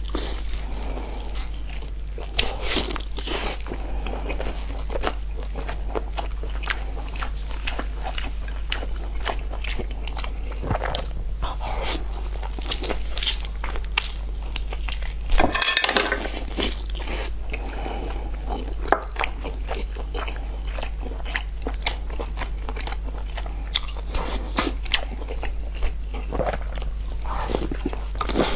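A person eating close to the microphone: irregular crunching bites and chewing, with a louder burst of crunching about halfway through. A steady low hum runs underneath.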